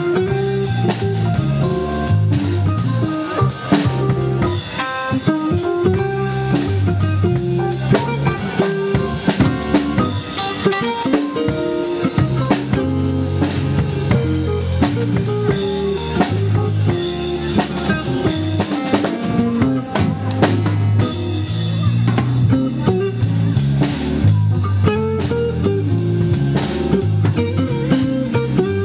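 Live band playing an instrumental passage with no singing: electric guitar, drum kit and electronic keyboard over a steady drum beat and moving low notes.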